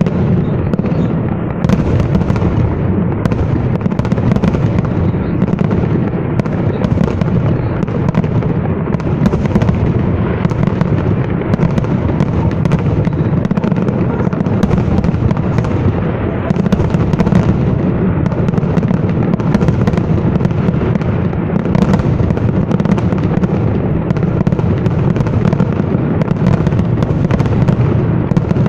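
Fireworks salute: shells bursting one after another in a dense, unbroken rumble of booms and cracks.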